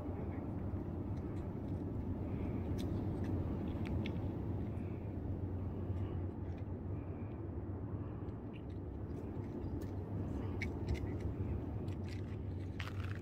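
Steady low rumble of a moving vehicle, with faint scattered clicks.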